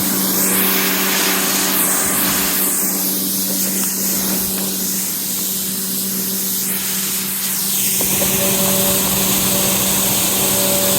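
Pressure washer spraying a steady jet of water while rinsing a car, its motor and pump giving a constant hum under the hiss of the spray.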